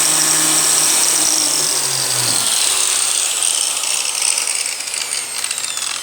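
Handheld four-blade electric grinder running at full speed with a high whine, then spinning down from about two seconds in, its whine falling steadily in pitch and fading as the blades coast to a stop.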